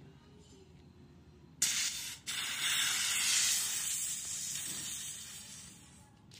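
Holi colour-cloud aerosol can spraying a cloud of yellow colour powder: a loud hiss starts about a second and a half in, breaks off for a moment, then resumes and dies away gradually.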